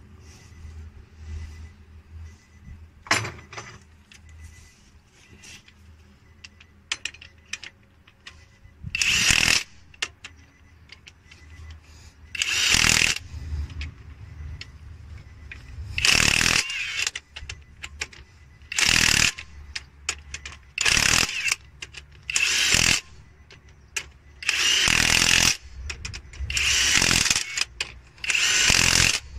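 Cordless impact wrench hammering on the bolts of the truck's fan-clutch pulley in about ten short bursts, starting about nine seconds in. A single sharp click comes about three seconds in.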